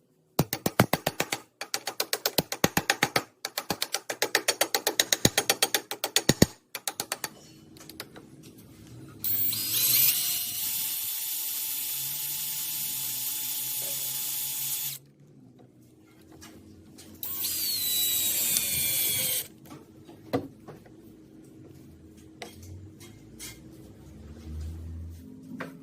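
Workshop tool sounds from shaping a metal spoon into a fitting for a sledgehammer head: a run of rapid, regular clicks, then a high-pitched power tool running for about six seconds, a pause, and a second shorter run of a couple of seconds, followed by a few light knocks.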